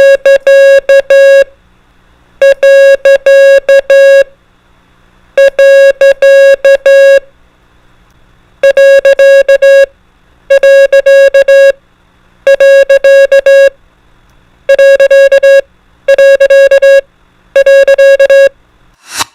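Morse code (CW) sent as a steady beeping tone: nine groups of short and long beeps (dits and dahs) with pauses between them, the later groups shorter. Faint background music in the gaps, and a brief burst of noise at the very end.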